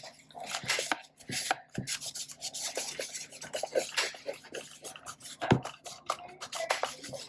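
Plastic restorer being rubbed into the black plastic body of a Kodak Instamatic X-35 camera: a run of irregular scratchy rubbing strokes with small knocks of the camera being handled, and one louder knock about five and a half seconds in.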